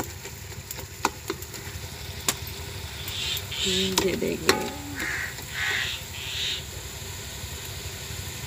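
A metal ladle stirring and tapping in an aluminium cooking pot of simmering curry masala, with a few sharp clinks. In the middle a bird calls several times in quick succession, and a brief voice sounds about four seconds in.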